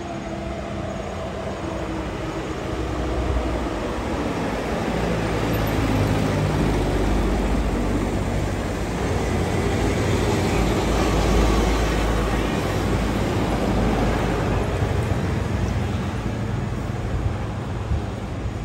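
Diesel engine of a loaded sugarcane truck driving past close by, its engine note falling in pitch over the first few seconds, then a heavy low rumble as it goes by. More trucks and a motorbike follow.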